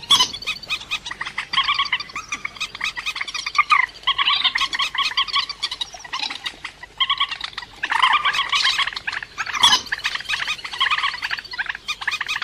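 Cuốc biển, a rail of wet rice fields, calling: rapid runs of repeated clucking notes in bursts with short pauses, a recording used as a trapping lure.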